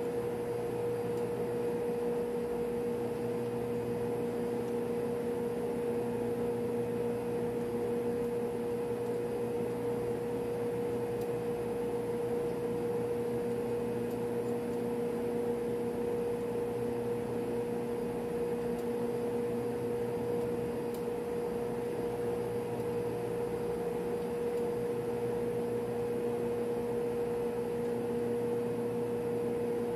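Steady drone of running machinery and ventilation in a ship's machinery space, with a constant mid-pitched hum over an even rushing noise.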